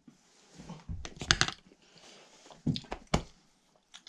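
Mouth and breathing noises of a man chewing and forcing down a raw king salmon eye, broken by a few short knocks and clicks about a second in and near three seconds.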